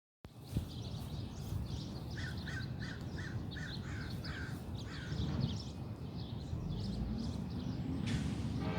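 Birds calling: one bird gives a quick series of about eight short calls, roughly three a second, starting about two seconds in, while other birds chirp higher up throughout. A steady low rumble of outdoor background noise runs underneath.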